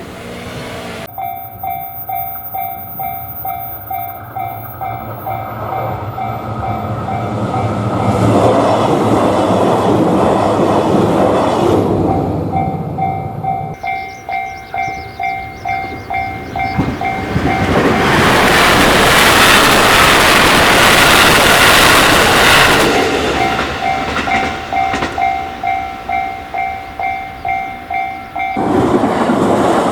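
Japanese level-crossing warning bell ringing its steady, pulsing "kan-kan" alarm while trains pass. The rumble of a passing train swells over it twice. Near the end the bell cuts off suddenly into another train's noise.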